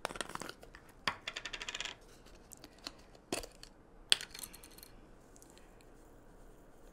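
Clicks and clinks of a spice jar being opened and dried parsley shaken into a measuring spoon, with a quick rattle of taps a little past one second in and a sharp clink of the spoon about four seconds in. Quieter after that.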